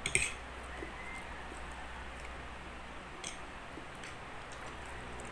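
Quiet eating at a table: a few faint clicks of metal forks against ceramic plates, the clearest right at the start and one about three seconds in, over a low steady hum.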